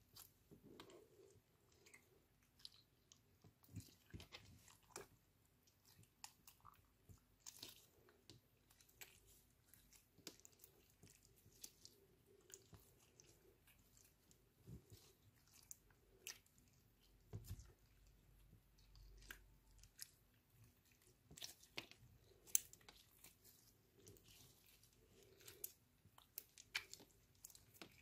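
Clear slime with lipstick mixed in being kneaded, squeezed and stretched by hand: faint, scattered sticky clicks and wet crackles as the slime is pressed and pulled apart.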